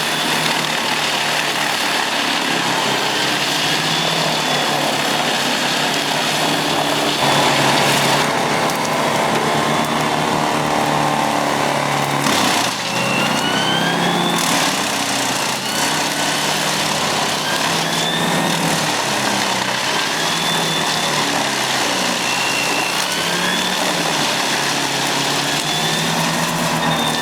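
Large wood chipper running under power: a steady engine drone with a higher whine that rises and falls as it chips. The sound changes abruptly a few times.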